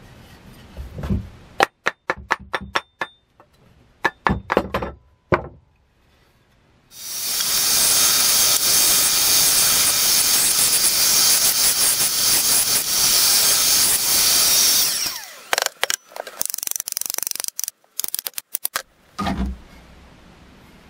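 Benchtop bandsaw cutting a wooden axe-handle blank, running steadily for about eight seconds in the middle. Runs of sharp clicks and knocks come before and after the cut.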